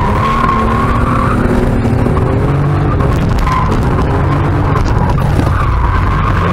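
The 2.5-litre straight-six of a BMW E36, heard from inside the cabin, running hard with its revs rising and falling as the car slides. A wavering tyre squeal runs alongside it.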